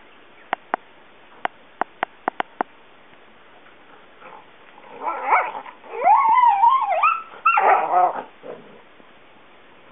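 A run of about eight short sharp clicks, then a dog whining and yelping in squeals that glide up and down during rough play.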